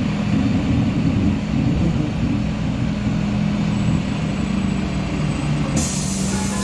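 Karosa B951E city bus heard from inside the passenger cabin, its diesel engine running with a steady low hum while driving. Near the end a sudden hiss of compressed air sets in.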